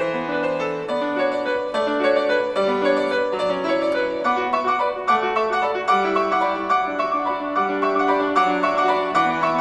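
Solo piano playing a flowing passage of many quick notes, with a violin before and after.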